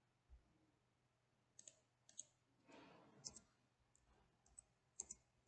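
Faint, scattered clicks of a computer keyboard and mouse as a value is edited, a few single taps and close pairs over near silence.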